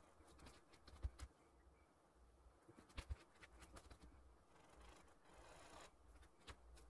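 Faint scratching of a paintbrush stroking oil paint onto canvas, with a few scattered light clicks and taps and a brief soft rasp a little over five seconds in.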